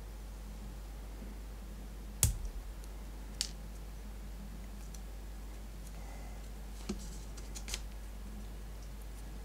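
Scissors snipping a plastic SIM card down to size: a few sharp clicks, the loudest about two seconds in, another a second later, and a small cluster near the end.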